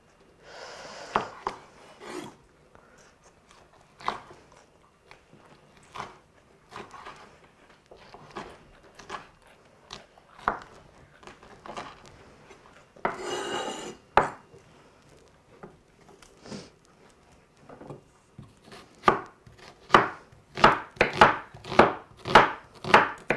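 Chef's knife cutting peppers and onion into strips on a wooden cutting board. Scattered single cuts knock on the board, with one brief noisy burst around the middle. Near the end the knife speeds into a quick, even run of chops, two or three a second, the loudest part.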